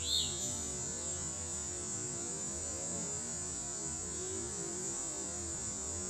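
Backyard ambience: a steady high-pitched drone and a low hum, with one short, falling bird chirp just after the start.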